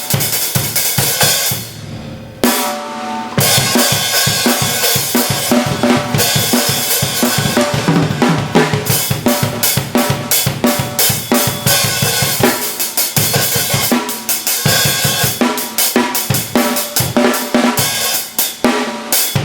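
Drum kit played with a pair of Zildjian 13" A Mastersound hi-hats, the hats ticking steadily over kick and snare strokes. The playing eases off briefly about two seconds in, then resumes at full level.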